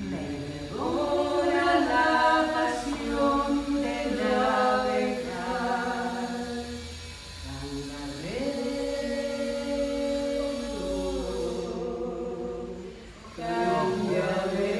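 A woman singing a Spanish-language song unaccompanied, holding long notes with a slight vibrato. There is a brief breath pause a little before the end.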